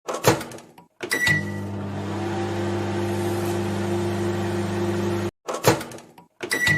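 Microwave oven sound effect: a click, then a click with a short beep, after which the oven runs with a steady hum. The hum cuts off abruptly about five seconds in, and after another click and beep it starts again.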